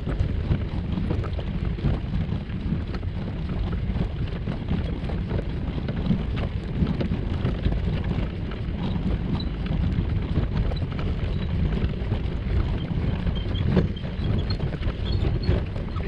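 A kayak rolling on its cart wheels over a gravel path: a steady, low rumble with many small irregular knocks, and wind buffeting the microphone.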